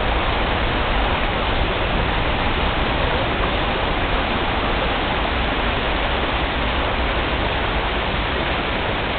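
Steady rushing of river water, an even hiss with no break or change.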